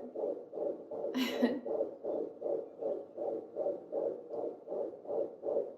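Fetal heartbeat played through a pocket fetal doppler's speaker: a fast, even train of whooshing pulses, several beats a second, the rapid heart rate of a 14-week fetus. A brief hiss about a second in.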